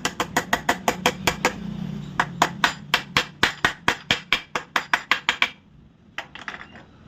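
Rapid hammer blows, about five a second, driving a packing piece into a loose bike seat to tighten it; the blows stop about five and a half seconds in, followed by a few lighter taps.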